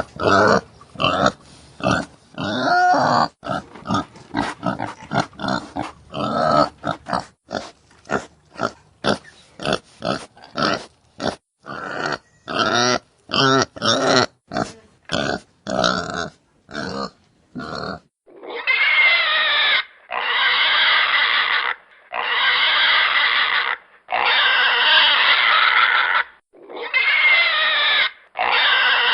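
Pigs grunting, many short grunts in quick succession; about eighteen seconds in, this gives way to a series of long, high squeals, each lasting a second or two with short pauses between.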